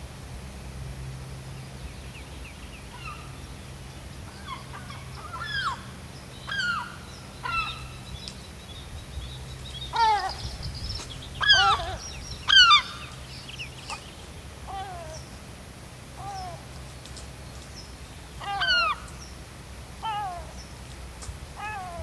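Gulls calling: a series of short calls, each falling in pitch, coming singly and in pairs, loudest near the middle. A low steady hum lies underneath.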